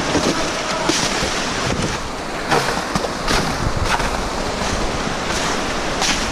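Footsteps crunching on snow and ice, an irregular step every half second to a second, over steady wind noise on the microphone.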